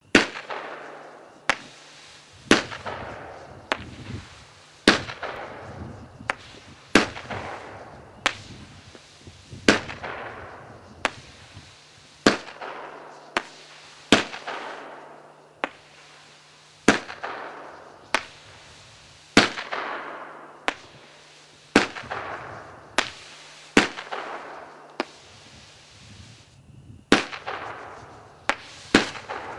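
Lightning Storm repeater firework cake firing shot after shot, a sharp bang about every second, each trailed by a fading tail of noise.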